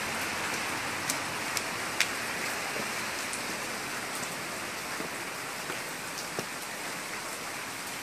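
Steady wash of rain and floodwater, with a few sharp clicks like drops hitting a hard surface.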